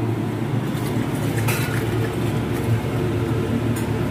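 Steady low rumble of a commercial gas range and its extraction hood, while soaked basmati rice is tipped from a steel pot into a large pot of boiling water, giving brief splashes about a second and a half in and again near the end.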